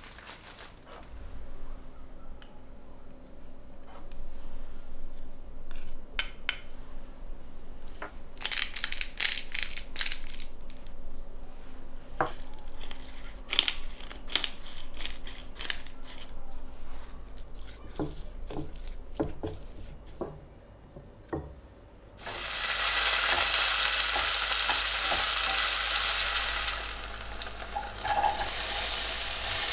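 A knife chopping raw chicken on a wooden cutting board, then clinks and taps of seasoning being added in a ceramic bowl. About two-thirds of the way in, the chicken starts to sizzle loudly as it fries in a pan; the sizzle dips briefly near the end and carries on.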